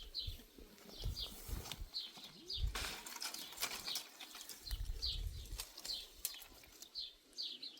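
Small birds chirping repeatedly in short high notes, with occasional low bumps and a couple of sharp clicks about three seconds in.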